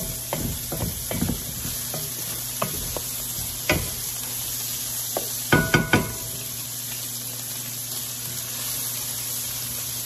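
Bacon and diced onions sizzling in a cast-iron skillet over high heat while a wooden spatula stirs and scrapes through them. A cluster of louder knocks comes about five and a half seconds in, as the spatula strikes the pan.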